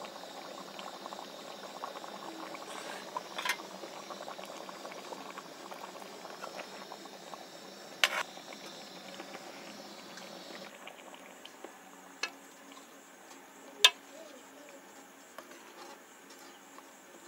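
Chicken curry simmering in an aluminium kadhai with a faint steady bubbling as a metal spoon stirs it, and three sharp clinks of the spoon against the pan.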